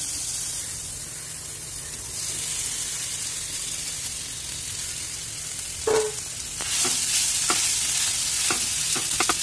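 Hot oil with spices sizzling in a frying pan as mashed potatoes go in and are stirred with a spatula. Several short knocks of the stirring come in the second half.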